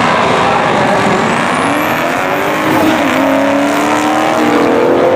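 Turbocharged 2JZ inline-six in a 1966 Pontiac Tempest drag car, running hard and accelerating, its engine note climbing in pitch in the second half. A high, thin turbo whistle rises about a second in and then holds.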